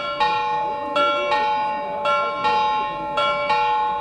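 Bells of the Frauenkirche's Männleinlaufen mechanical clock chiming during the noon figure procession. It is a run of struck strokes about every half second to a second, each bell ringing on under the next.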